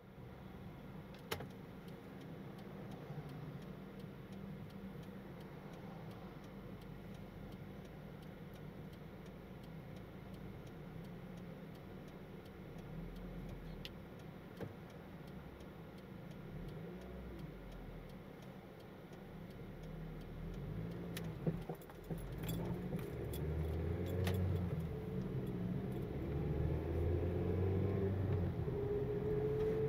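Car driving with light rattling and a few clicks. The road and engine noise grows louder in the last third, with a rising engine tone near the end as the car speeds up.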